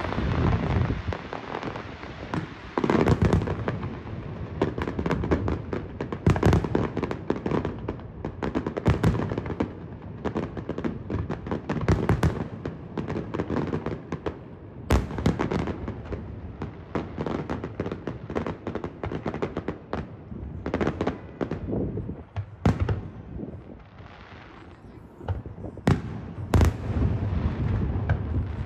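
Aerial fireworks display: a continuous run of rapid pops and crackles with louder bangs from shell bursts every few seconds. There is a brief lull shortly before the end, then a final burst of loud bangs.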